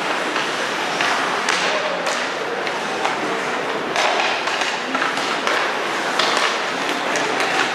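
Ice hockey play: skate blades scraping on the ice, with sticks and puck clacking and several sharp knocks.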